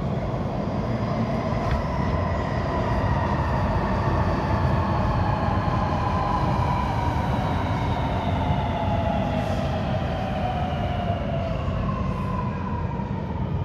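Sydney Metro Alstom Metropolis train pulling into an underground platform and braking, its traction motors whining in several tones that fall steadily in pitch as it slows, over a steady low rumble.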